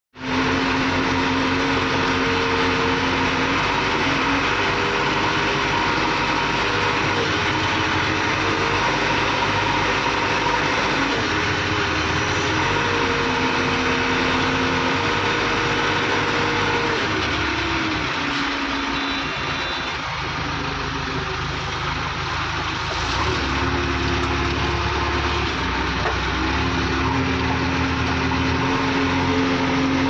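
JCB 3DX backhoe loader's diesel engine running steadily while the machine works, its pitch stepping up and down every few seconds.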